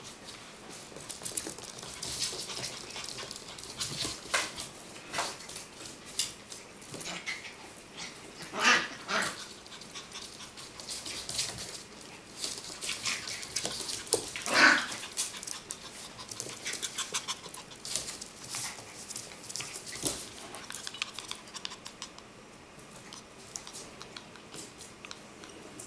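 Yorkshire terrier puppies playing rough on a hardwood floor: quick scuffling and clicking, with panting, and two short barks, the loudest sounds, about nine and fifteen seconds in.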